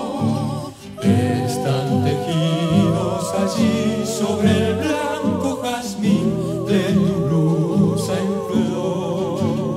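A mixed vocal group sings an Argentine zamba in close harmony, with several voices wavering in vibrato above a steady low part. The sound drops briefly just under a second in, then the singing resumes.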